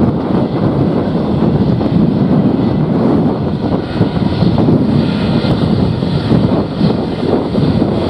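Airbus A320 jet engines running at low taxi thrust as the airliner rolls slowly past, under a heavy, gusting wind rumble on the microphone.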